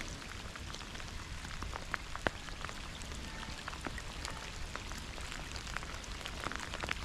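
Rain falling, with many separate drops ticking at irregular intervals close to the microphone.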